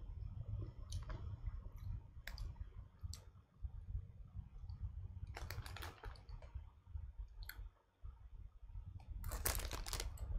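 Potato crisps being chewed, with scattered sharp crunches, and a crisp packet crinkling as it is handled near the end.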